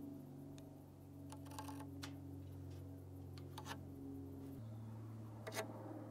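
A few light clicks and taps of an aluminium speed square, tape measure and pencil being set down and handled on a rough-cut 2x4 while it is marked, over a faint low steady hum. The sharpest click comes near the end.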